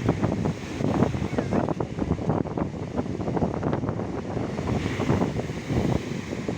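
Sea waves washing onto the shore, with wind buffeting the microphone and causing a low, fluctuating rumble.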